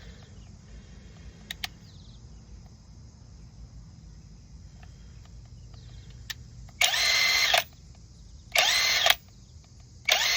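Bosch Freak cordless impact driver/wrench on a rusty, tight car lug nut, running in three short trigger bursts about 7, 8.5 and 10 seconds in, the last one running on past the end; the nut is not breaking loose. Faint clicks of the tool and socket being handled come before the bursts.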